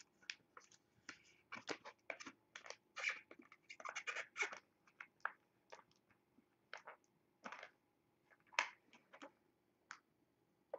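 Faint, irregular scratching and clicking of a trading card and stiff plastic card holders being handled on a table.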